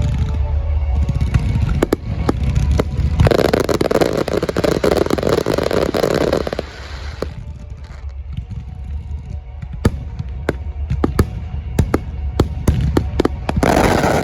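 Aerial fireworks bursting over a music soundtrack: many sharp bangs with a low rumble, a dense loud stretch of crackling and booms lasting about three seconds, then scattered bangs and another loud burst near the end.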